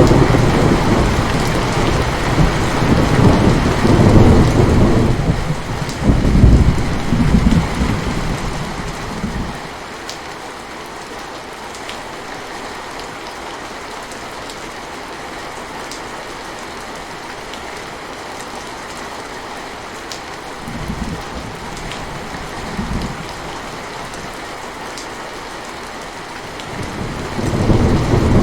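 Steady rain falling, with a long roll of thunder for the first nine seconds or so, two short low rumbles past the middle, and thunder building again near the end.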